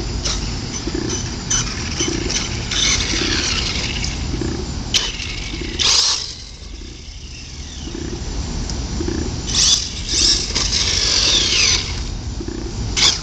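Electric RC monster truck driving, its motor whining in repeated bursts that rise and fall in pitch over a steady low rumble, with a quieter lull midway.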